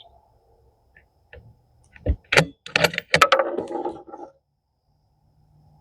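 Marlin X7VH bolt-action rifle being handled: a few light clicks, then, about two seconds in, a quick run of sharp metallic clacks and rattling as the bolt is worked.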